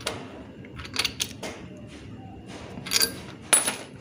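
Small metallic clicks and scrapes of a new spark plug being fitted into a motorbike engine's cylinder head, with a few sharper clicks about three seconds in.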